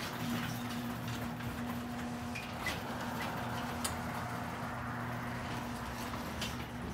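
Sectional garage door closing under an electric opener: a steady motor hum with the door's running rattle and a few sharp clicks as it rolls down its tracks.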